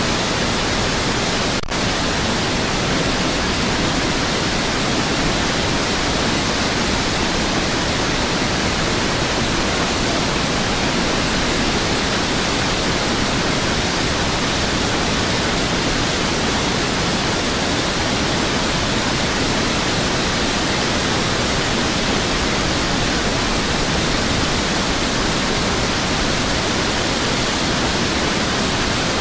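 Steady roar of a flooded river's rushing water: an even, unbroken hiss across all pitches, with a split-second dropout about two seconds in.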